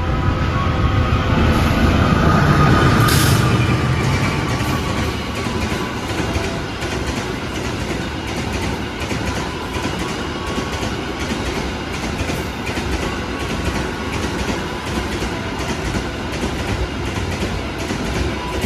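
A diesel-electric locomotive hauling a container freight train passes close by, loudest about two to three seconds in. The container flatcars then keep rolling past in a steady rumble, with the clickety-clack of wheels over the rail joints.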